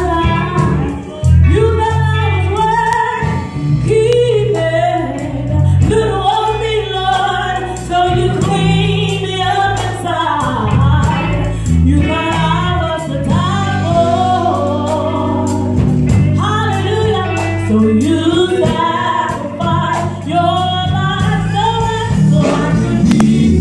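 Live gospel music: women singing lead over amplified electric bass and electric guitar.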